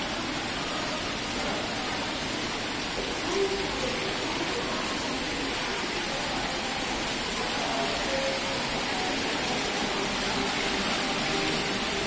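Artificial indoor waterfall: water running steadily down a stepped stone cascade, a constant rushing splash. Faint voices sound under it.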